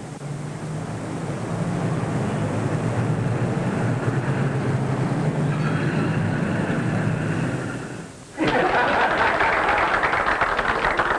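An old car's engine running as the car draws up, getting louder over the first couple of seconds. After a sudden cut about eight seconds in, a roomful of people applauding.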